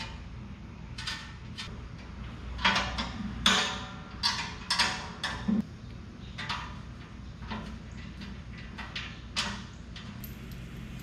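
Irregular metallic clinks and knocks of hand tools and parts being handled at the belt cover of a Rayco RG50 stump grinder, busiest a few seconds in. A low steady hum runs underneath.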